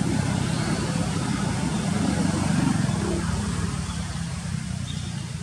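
An engine running steadily, a low hum that swells slightly around the middle.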